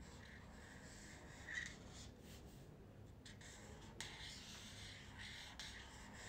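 Faint scratching of a pen drawing in short strokes on paper, with a light tick about four seconds in.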